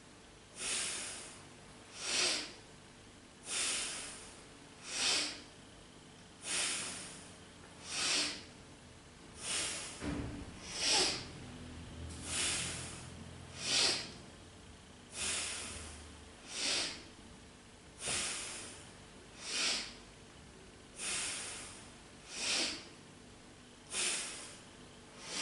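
A woman's powerful, rhythmic breathing during leg lifts: strong inhales through the nose alternating with exhales, one breath sound about every one and a half seconds.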